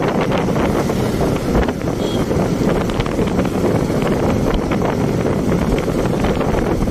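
Wind rushing over the microphone of a motorcycle riding at a steady speed, with the bike's running and road noise beneath it.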